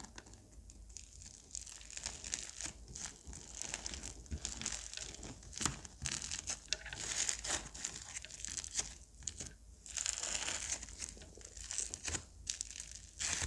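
Slime being squeezed, folded and stretched by hand, giving a dense, irregular run of crinkly crackles and small pops.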